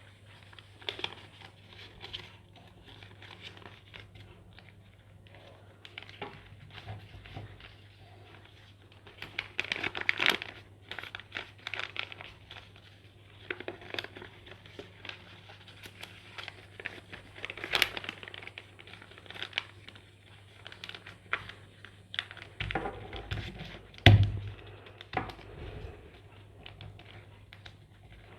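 Sheet of craft paper rustling and crinkling in irregular bursts as it is folded and creased by hand, with one louder thud near the end, over a faint steady low hum.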